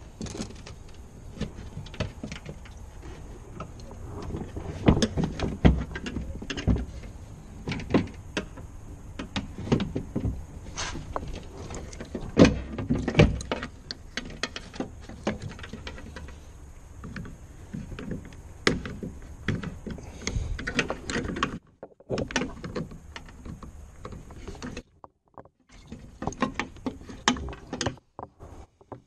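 Irregular clicks, knocks and light rattles of a screwdriver and hands working at wiring and plastic fittings inside the stripped door of a VW Golf Mk4. The sound cuts out briefly a few times near the end.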